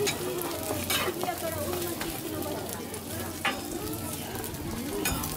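Okonomiyaki sizzling on a metal griddle, with sharp clacks and scrapes of metal spatulas on the griddle as the pancakes are turned and pressed, several times.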